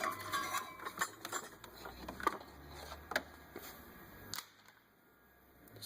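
Serpentine belt being pulled out of the engine bay by hand: scattered light clicks, knocks and rubbing for about four seconds, then quiet.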